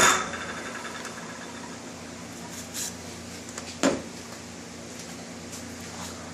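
A shop power tool is switched off and spins down at the start. After that a steady low hum remains, with a light clatter near 3 seconds and one sharp knock about 4 seconds in.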